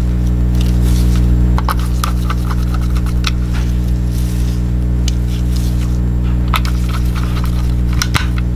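A small precision screwdriver turning screws into the plastic base of a Logitech G Pro mouse as it is reassembled: scattered small clicks and light scraping, with the sharpest clicks near the end. Under it runs a loud, steady low hum.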